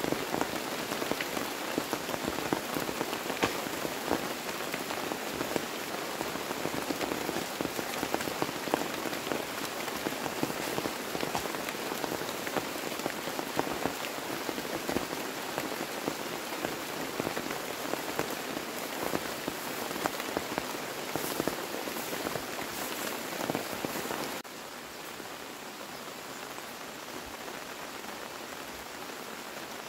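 Rain falling steadily, a dense patter of drops on a surface. Near the end it cuts abruptly to a quieter, even hiss.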